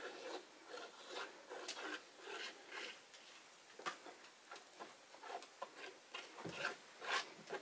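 Faint, irregular soft clicks and wet smearing as a gloved hand and a small spreader push thick black acrylic paint around on a canvas.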